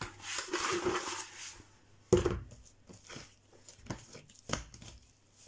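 Hands rubbing vegetable oil around a plastic bowl, a short hissing rub, then a sharp thump about two seconds in and a few soft taps and squishes as soft yeast dough is picked up and handled on the table.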